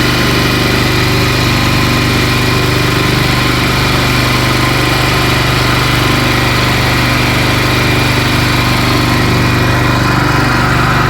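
Small engine running steadily at a constant speed, with an even drone that does not change.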